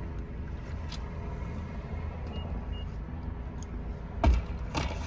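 Steady low hum inside a parked car's cabin, with a short thump about four seconds in and another near the end.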